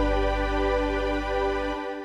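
Background music: a sustained keyboard chord held and fading, its low bass dropping out near the end.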